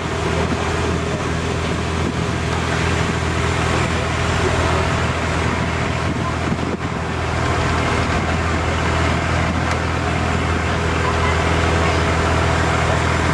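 River slow boat's engine running at a steady cruise: a constant low drone under a broad hiss, heard from inside the wooden passenger cabin.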